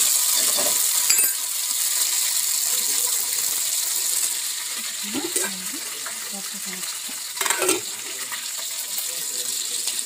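Hot oil sizzling as sliced garlic fries in an aluminium pot, with a ladle stirring and clinking against the pot a couple of times.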